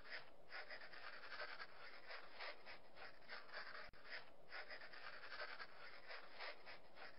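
Faint computer keyboard typing: soft, irregular taps, a few per second.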